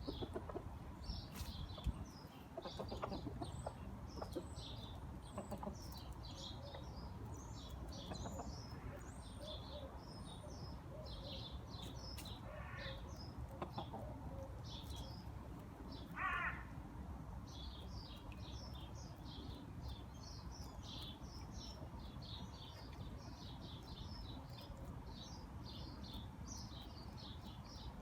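Small birds chirping repeatedly in short high notes, with one louder, lower call from a hen about halfway through, over a steady low background rumble.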